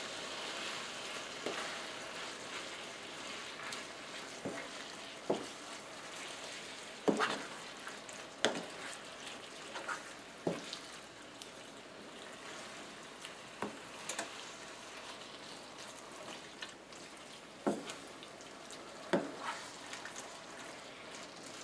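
Shredded chicken being stirred into a thick sauce in a shallow frying pan: a steady soft sizzle, with irregular clicks and knocks of the stirring utensil against the pan.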